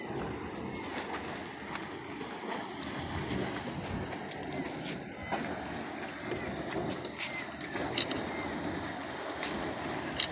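Dragon's Mouth Spring, a hot spring churning and sloshing in its steaming cave, gives a steady rushing water noise. Two short clicks near the end.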